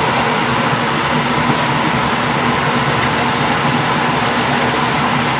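A blower running with a steady whooshing drone and a low hum throughout.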